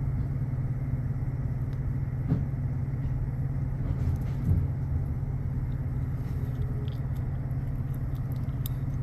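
Steady low mechanical hum and rumble of running refrigeration equipment, even throughout with a few faint ticks.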